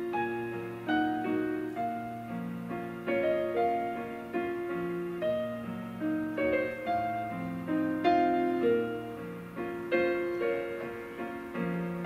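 Yamaha PSR-S950 arranger keyboard played with a piano-like voice: a flowing line of chords and melody notes, each struck and fading, over a low bass note held for several seconds at a time.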